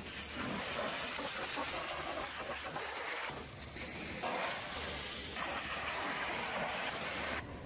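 High-pressure washer spraying water onto a truck's body and wheels: a steady hiss of spray that changes abruptly several times between short stretches.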